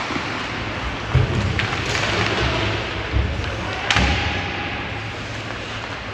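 Sharp knocks and thumps of hockey sticks, puck and boards during an ice hockey game, the loudest about four seconds in, over a steady murmur of rink and crowd noise.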